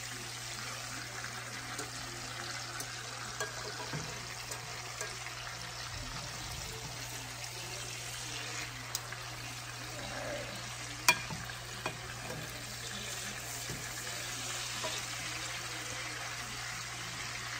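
Chicken thighs frying in a sauté pan with a steady sizzle. Metal tongs click against the pan now and then as the pieces are turned, with one sharper click about eleven seconds in.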